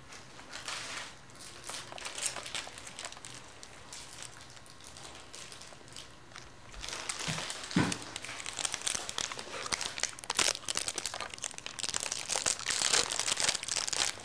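A candy bar's wrapper crinkling as it is handled, starting about halfway through and getting louder toward the end, with fainter rustling before it.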